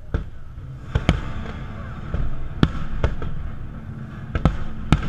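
Aerial fireworks shells bursting overhead: about seven sharp bangs at uneven intervals, over a steady low background rumble.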